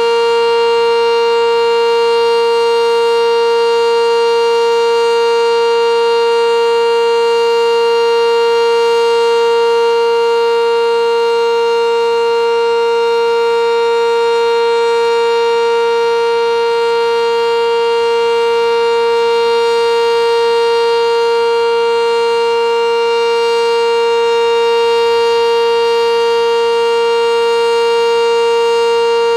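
Sentry 10V2T outdoor warning siren sounding a steady, really loud single tone with strong overtones, holding one pitch without rising or falling. Only one of its two motors is working, so it sounds one tone instead of its normal two-tone chord.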